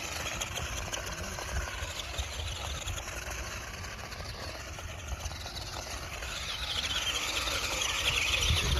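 Radio-controlled car driving off-road: its motor and drivetrain whine, wavering with the throttle, over a low rumble with small knocks. The whine gets louder over the last couple of seconds.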